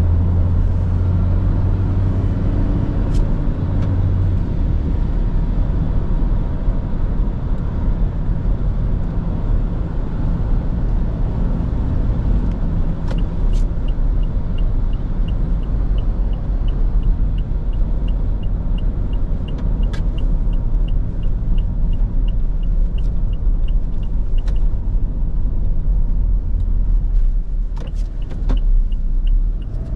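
Toyota Kijang Innova's 2.4-litre four-cylinder turbo diesel (2GD-FTV) and its tyres, heard from the cabin while driving. There is a steady low rumble, with a strong low engine tone in the first few seconds that then sinks into the road noise. From about halfway through, a light regular ticking of about three a second runs until near the end.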